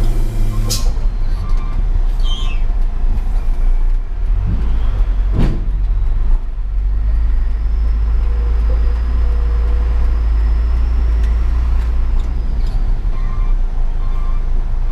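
Hino 500 truck's diesel engine running with a steady heavy low rumble, with one sharp knock about five seconds in.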